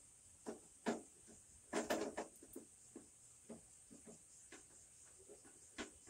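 Clicks and knocks of hardware being handled inside a desktop computer case while a replacement hard disk is fitted. A sharp knock a little under a second in and a quick cluster of knocks about two seconds in are the loudest, followed by fainter scattered clicks.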